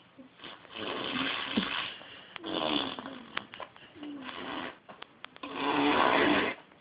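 Baby making farting noises: four noisy bursts of about a second each with short pauses between, some trailing into a small baby sound. The last one is the loudest.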